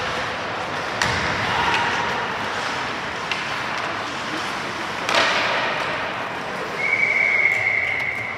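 Ice hockey play in an arena: a steady hubbub with sharp knocks, the loudest about a second in and about five seconds in, then a referee's whistle blown in one long steady blast near the end.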